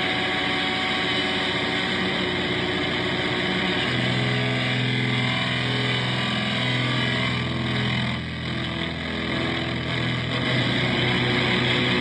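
Heavily distorted electric guitar playing a sustained, droning noise riff: thick held tones under a haze of distortion, moving to a lower held chord about four seconds in.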